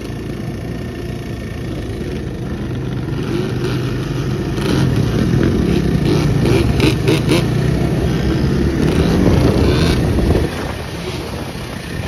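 Yamaha Blaster quad's single-cylinder two-stroke engine, bored out to 260cc, revving under load as it is ridden on its back wheels. It gets louder about a third of the way in and drops off shortly before the end.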